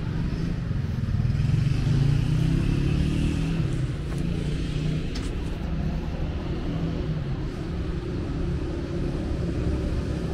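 City road traffic running steadily on the street beside the pavement, with a vehicle engine passing louder about two seconds in.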